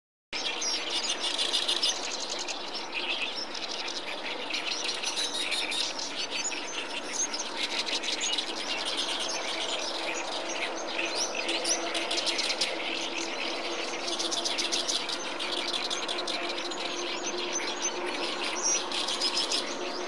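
Oriental reed warbler singing: a run of rapid repeated notes that goes on almost without a pause.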